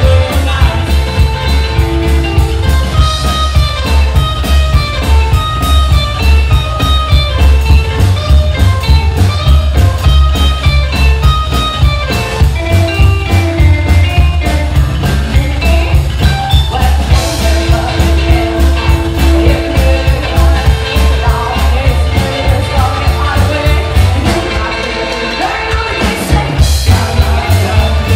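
Live rockabilly band playing a fast boogie: electric guitar, upright double bass and drums on a steady driving beat, with a woman singing. Near the end the bass and drums drop back briefly, then come in again.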